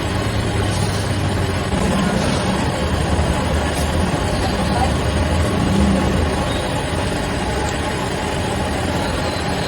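Street traffic noise with a motor vehicle engine running nearby: a steady low hum under a continuous rush of noise.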